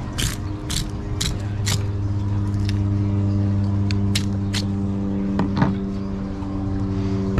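A fillet knife cutting along the backbone of an ono (wahoo), heard as a run of short, crisp scraping strokes, about two a second at first and then a few more spaced out. Under it an engine idles with a steady hum.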